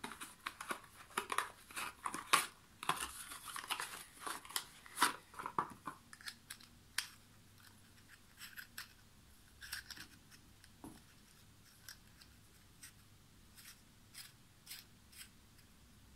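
A run of short, light clicks and scrapes, quick and irregular for the first six seconds, then only now and then.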